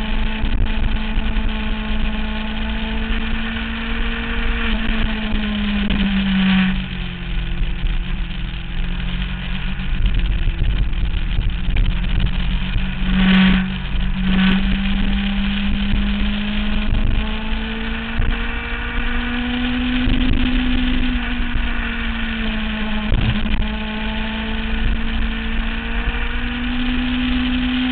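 2009 Kawasaki ZX-6R's inline-four engine running hard on the open road, its pitch dropping about a sixth of the way in and then climbing back up in long rises as the throttle opens, with two short louder bursts about halfway. Wind rumbles on the microphone throughout.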